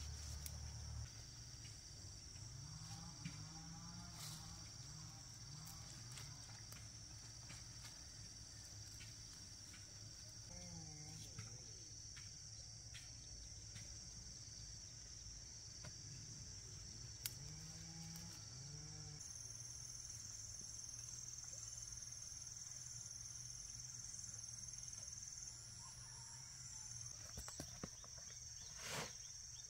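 Steady high-pitched drone of insects, with scattered light clicks and rustles over it and one sharper click near the end.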